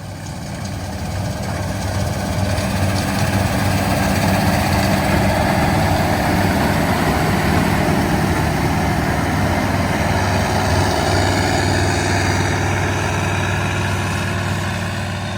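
AGCO Gleaner R62 combine with its air-cooled Deutz twin-turbo V8 running under load while harvesting wheat. A steady low engine hum sits under a broad mechanical rush; it swells over the first few seconds, then holds steady.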